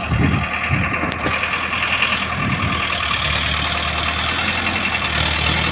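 Diesel tractor engines running steadily, with a few low rumbling swells in the first second and again about two and a half seconds in, as a tractor works to pull a straw-laden trolley out of deep mud.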